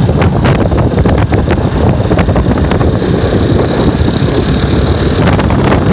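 Riding noise from a moving vehicle: wind rushing and buffeting over the microphone together with the engine and road noise of a large scooter. A faint steady high whine comes in for a couple of seconds in the middle.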